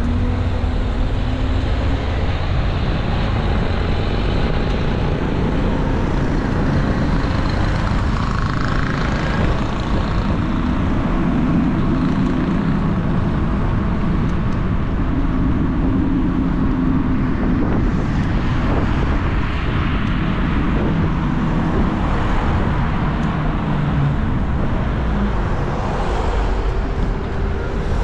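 Street traffic noise: a steady rumble of vehicle engines, with engine hum rising and fading now and then.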